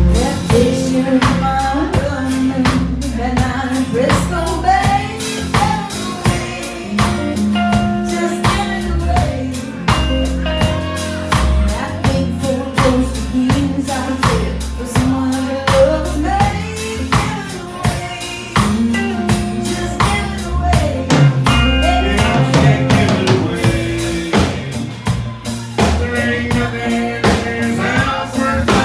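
Live country band playing: strummed acoustic guitar and a drum kit keeping a steady beat, with a woman singing lead into a microphone.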